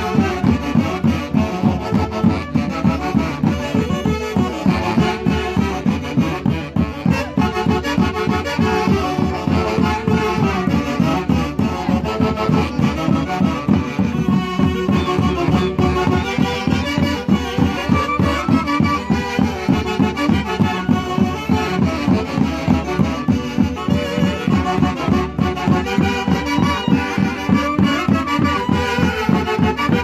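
Andean orquesta típica of saxophones, clarinets, violins and harp playing a lively traditional tune with a steady beat while walking.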